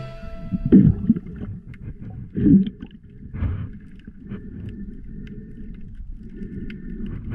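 Muffled underwater sound picked up by a submerged camera: a low rumble and gurgle of water moving around the housing, with two louder swells early on and a few faint clicks.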